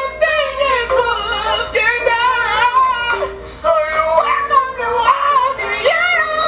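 A solo voice singing a high, soulful melody full of quick vocal runs, over soft keyboard accompaniment.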